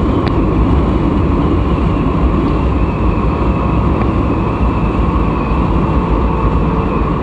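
Yamaha Vega ZR underbone motorcycle riding at speed: its small single-cylinder engine running steadily under a loud, even rush of wind and road noise.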